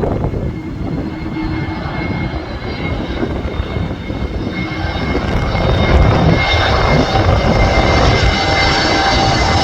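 Airliner engines on landing approach: a low rumble with a steady high whine that grows louder about halfway through as the aircraft comes closer, with wind buffeting the microphone.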